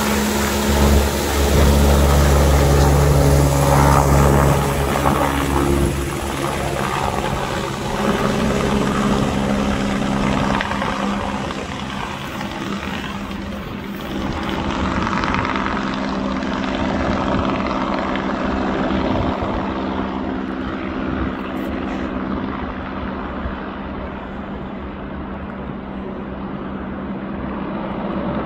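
Helicopter rotor and engine drone carrying an underslung load, loud and deep while it is close overhead in the first few seconds. It then steadily fades and grows duller as the helicopter flies off into the distance.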